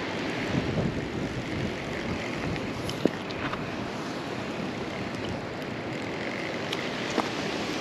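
Steady wind buffeting the microphone in a low rush, with a few light clicks from handling, the sharpest about three seconds in.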